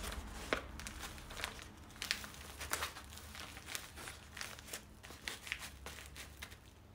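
Stiff sego gele headwrap fabric crinkling and rustling as hands tuck and adjust it on the head, in short irregular crackles.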